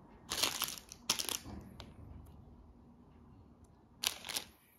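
Crinkling rustles of a small plastic parts bag being handled, in three short bursts, with a few faint clicks of small plastic minifigure parts.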